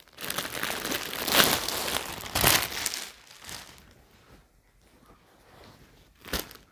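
Plastic packaging crinkling and rustling as a folded cloth suit is unwrapped and handled, in several bursts over the first three seconds. It then goes mostly quiet, with one short rustle near the end.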